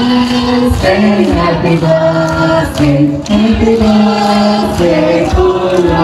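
A group singing a song together in chorus, with hands clapping in time to a steady beat.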